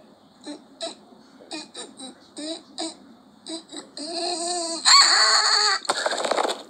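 A high-pitched voice making short giggle-like squeaks about twice a second, then a longer wavering whine that swells into a loud squeal about five seconds in. It ends in a rough noisy burst that cuts off abruptly.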